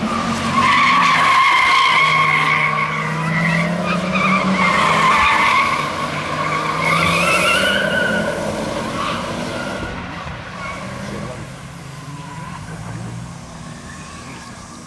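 Car tyres squealing as the car is driven hard through corners on a track, over the engine running under load. The squeal wavers in pitch, is loudest in the first half, then both fade as the car draws away.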